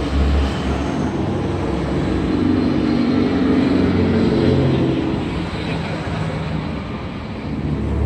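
Engine drone of passing motor traffic, swelling around the middle and easing off near the end.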